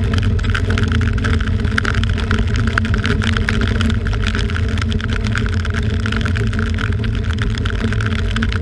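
Home-built rotating-arm test rig running near full speed: water rushing and churning around the arm-mounted GoPro as it sweeps through the test pool, over a steady motor hum and low rumble.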